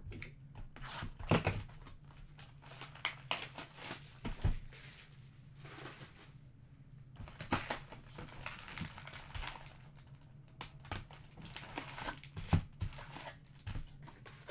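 Trading-card pack wrappers crinkling and tearing as the packs are handled and ripped open by hand, in irregular sharp rustles.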